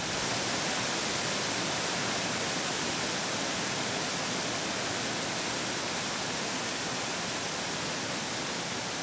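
The River Calder in spate: a steady rush of water churning over rocky falls and rapids.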